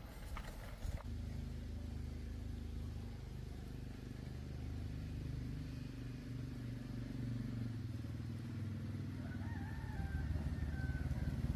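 A motorcycle engine idling steadily, with a rooster crowing once near the end.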